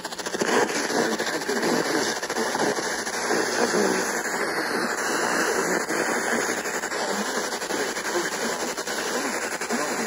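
Steady hiss of FM static from a Sangean portable radio's speaker on a weakly received station, with faint program audio under the noise.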